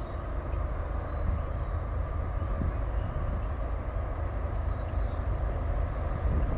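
Steady low engine rumble, with a few faint, short falling bird chirps about a second in and again near five seconds.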